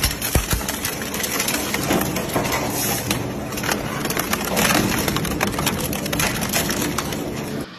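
Twin-shaft industrial shredder's hooked cutter discs tearing apart a motorcycle: continuous crunching of metal and rubber, full of sharp cracks. It cuts off at the very end.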